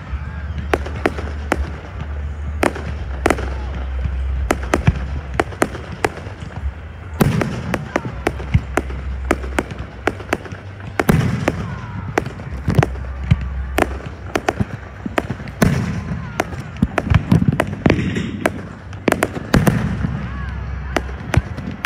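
Aerial fireworks display: shells bursting overhead in quick succession, many sharp bangs and crackles every second, with heavier booms now and then.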